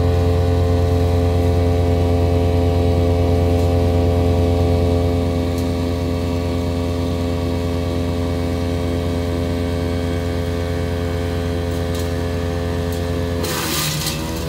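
Big Bear Power BBC-62 wood chipper running steadily at speed with a deep, even drone. Near the end a branch goes through: a short, loud crunch of chipping while the engine note dips under the load and then picks back up.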